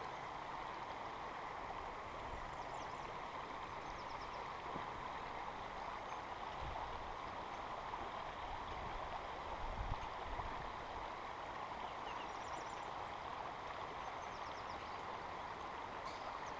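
Creek water running steadily, with a couple of low bumps midway.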